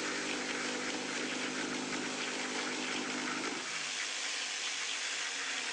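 Bosch barrel-grip jigsaw running as it cuts, a steady motor hum and rasp; the hum drops back about three and a half seconds in.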